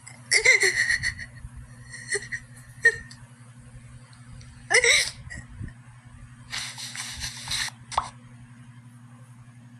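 A person crying in short, gasping sobs, with breaks between them and a long shaky breath drawn in near the end, over a steady low hum.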